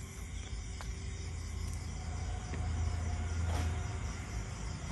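Night-time outdoor ambience: insects chirring steadily in the background over a steady low rumble, which grows a little louder about halfway through, with a faint click or two.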